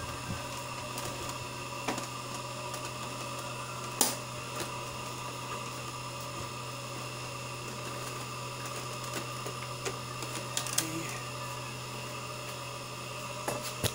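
Scattered sharp clicks and knocks from the plastic casing of an Epson L360 printer as it is handled and turned onto its side. The loudest knock comes about four seconds in, with a quick run of clicks later. A steady low hum continues underneath.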